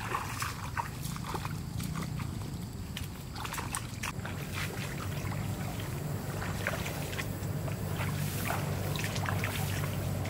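Shallow water sloshing, with many small splashes and clicks scattered throughout, over a steady low hum.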